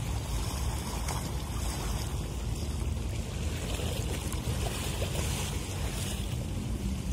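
Ship's engine running with a steady low drone under the even hiss of water and wind.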